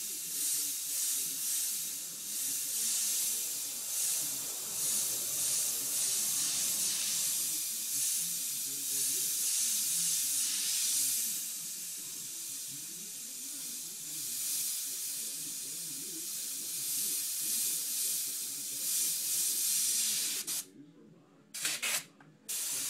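Airbrush spraying paint: a steady hiss of compressed air that swells and eases as the trigger is worked. It cuts off near the end, followed by two short puffs.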